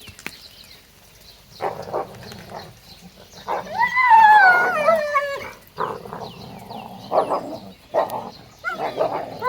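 Excited dogs barking in short bursts, with one long, wavering, howl-like whine about three and a half seconds in that slides down in pitch over about two seconds.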